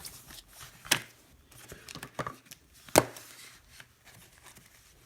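Trading cards being slid into plastic card sleeves: soft crinkling and rustling of the plastic, with a few sharp taps, the loudest about a second in and about three seconds in.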